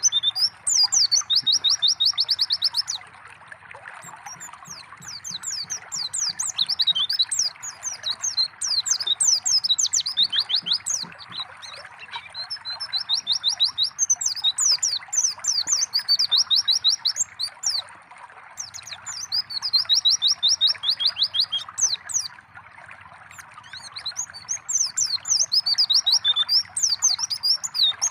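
White-eye (pleci) singing in repeated phrases of fast high chirps and rattling trills, with short pauses between phrases. A steady trickling-water sound runs underneath. It is a lure song meant to set caged white-eyes singing.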